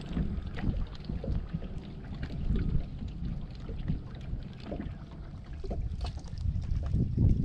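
Strong wind buffeting the microphone, with water slapping against a boat's hull in small irregular knocks.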